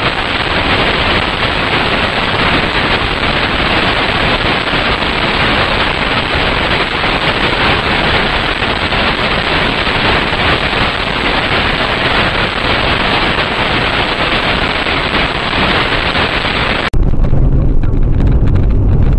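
Loud, steady hiss of static on a security camera's audio track. It cuts off suddenly near the end and gives way to the low rumble of a car driving, picked up by a dashboard camera.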